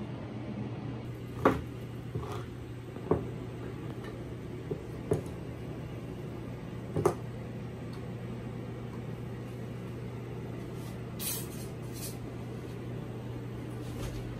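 Kitchen handling noises: a few sharp clicks and knocks of cans and utensils on a table in the first half, over a steady low hum.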